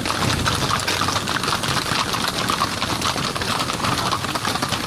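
Hooves of many horses walking past at close range: a continuous run of overlapping hoofbeats.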